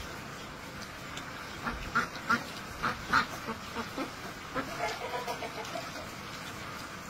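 Farmyard fowl calling: a string of short, sharp calls from about two seconds in, then a quicker run of lower calls around five seconds.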